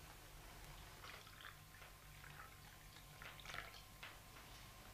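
Near silence: room tone with a few faint small clicks.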